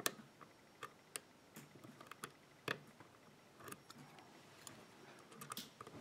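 Faint, irregular light clicks of a steel hook pick lifting and probing the steel pin stacks inside a WILKA five-pin euro cylinder held under light tension, with sharper clicks at the start and about two and a half seconds in.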